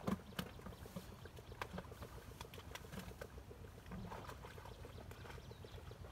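Water splashing and fish flapping in a seine net as they are lifted out and dropped into metal pots, in scattered sharp splashes. A steady low engine putter runs underneath.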